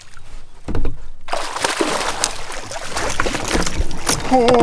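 Water splashing and sloshing beside a canoe as a big hooked fish is fought, after a low knock on the hull about half a second in. A man's voice exclaims near the end.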